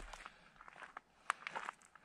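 Footsteps on a gravel road, a few irregular crunching steps, with the sharpest about halfway through.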